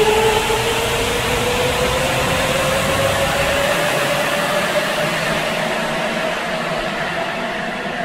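Sapporo subway rubber-tyred train accelerating out of the station, its motor whine rising steadily in pitch. The low rumble drops away a few seconds in, and the sound fades slightly as the train pulls away.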